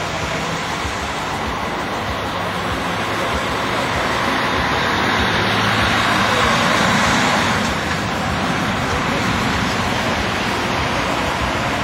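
Motorway traffic driving past: a steady rush of tyre and engine noise that swells louder for a few seconds around the middle as a vehicle goes by, then settles back.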